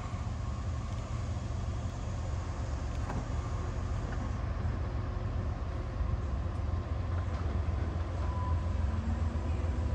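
Low, steady rumble of an approaching CSX freight train's diesel locomotives, growing slowly louder.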